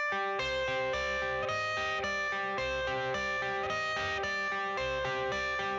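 Background music: a guitar-led instrumental intro with a steady beat, no vocals yet.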